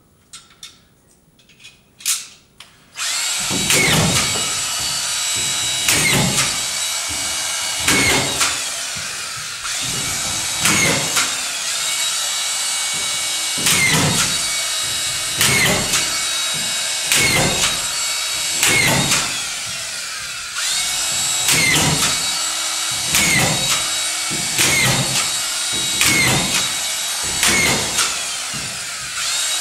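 Power screw gun driving screws into drywall: a few clicks, then about three seconds in the motor starts and keeps running with a steady whine. Every second or two it catches and dips in pitch as each screw is driven home.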